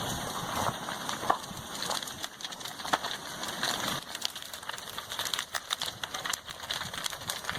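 Irregular crackling, snapping and popping of a house burning as lava engulfs it, with a couple of louder cracks in the first few seconds.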